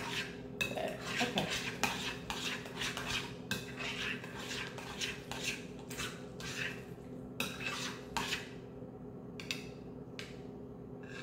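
Spoon scraping and clinking against a bowl while stirring egg salad, in quick repeated strokes that thin out to a few clicks near the end.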